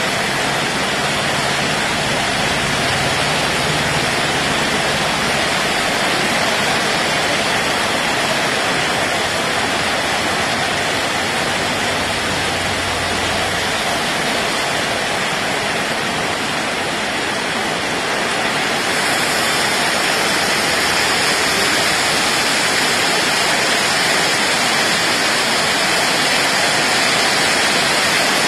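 Heavy cyclone rain pouring steadily on trees and ground, a dense even hiss. About two-thirds of the way through it turns a little louder and brighter.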